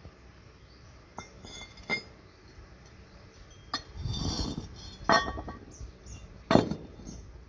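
Metal parts and tools clinking and knocking as they are handled, a handful of separate clinks, some ringing briefly, with a short scraping rustle in the middle.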